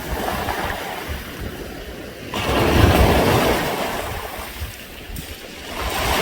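Sea waves washing up a beach of smooth round pebbles and draining back, the stones rattling as the water moves them. One wave comes in sharply about two seconds in and fades away, and the next begins to build near the end.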